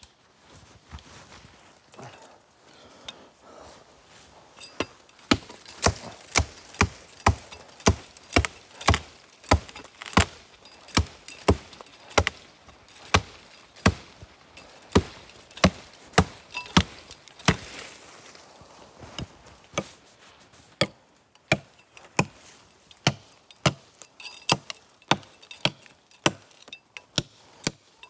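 Repeated chopping into a tree with a hand-held blade: sharp, separate strikes on wood, faint and scattered at first, then hard and regular at about one to two a second from about five seconds in.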